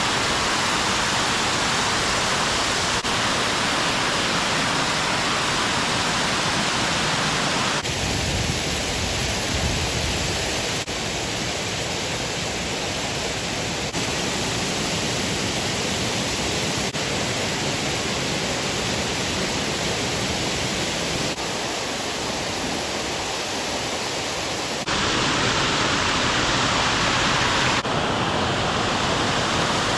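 Waterfall rushing: a steady, loud hiss of falling water with no break. Its tone and level shift abruptly about a quarter of the way in and twice more near the end.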